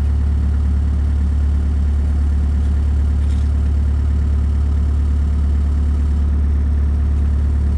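Engine idling steadily with an unbroken deep hum that holds the same pitch throughout.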